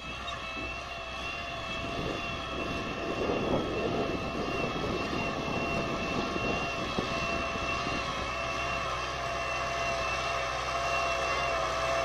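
Valmet 985 tractor's diesel engine running steadily under load as it pulls an offset disc harrow, with a steady high whine over the engine note. It grows louder over the first few seconds as the tractor approaches.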